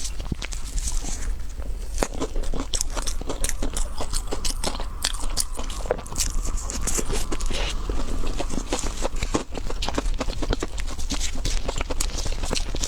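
Close-miked eating of a chocolate dessert: biting and chewing, a dense, unbroken run of small clicks and crunches.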